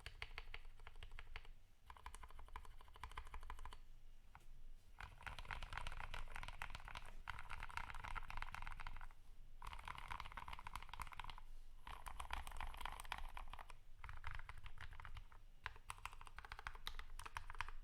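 Fast typing on a Drop Alt mechanical keyboard with lubed, filmed Kailh Speed Silver linear switches and PBT keycaps: dense runs of keystroke clacks broken by short pauses every few seconds.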